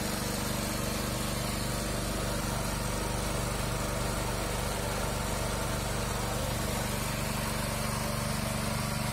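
Electric screw oil press running steadily under load as it presses seeds, a continuous even drone with steady low tones from its motor and gearbox.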